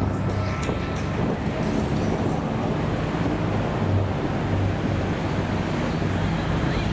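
Piston engine of a single-engine propeller plane droning steadily as it flies past overhead, mixed with wind rumble on the microphone.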